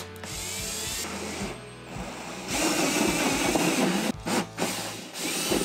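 Cordless drill with a step bit boring a round hole through the plastic lid of an ammo box, running in spurts: a dip about a second and a half in, then the loudest stretch of cutting, and a last short burst near the end.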